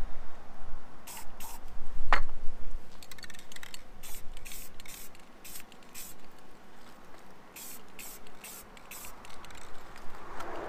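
Aerosol spray-paint can hissing in a series of short bursts as paint is sprayed onto a steel hitch. There is a sharp click about two seconds in.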